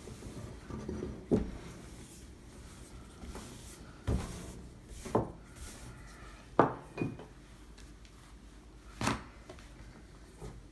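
Wooden rolling pin working bread dough on a wooden tabletop: low rolling rumbles broken by about six sharp wooden knocks.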